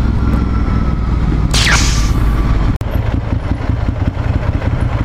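Ducati Monster 796 air-cooled L-twin running under way, with a brief high sound that falls in pitch about one and a half seconds in. A sudden cut near three seconds in, after which the engine runs at low speed in traffic.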